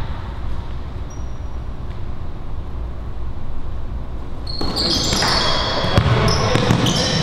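Sneakers squeaking on a hardwood court and a basketball bouncing, starting about four and a half seconds in, once play opens from the jump ball. Before that there is only a low, steady gym hum.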